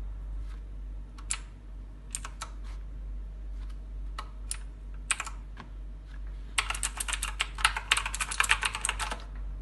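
Future RGB Chroma gaming mechanical keyboard being typed on. A few scattered single keystrokes are followed, about two-thirds of the way in, by a fast run of rapid key clicks.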